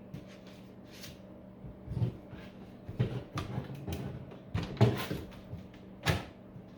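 Sharp clunks and knocks of metal tools and parts being handled, about five of them spread a second or so apart, as the transformer is unbolted from an old battery charger. A faint steady low hum runs underneath.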